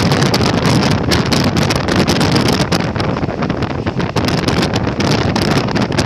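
Wind buffeting the microphone loudly over the steady rumbling running noise of a moving train.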